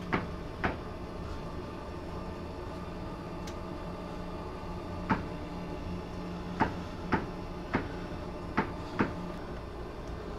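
Distant gunshots from the pirates attacking the ship: sharp single cracks at irregular intervals, two about a second in, then six more between about five and nine seconds in. A steady hum from the ship runs underneath.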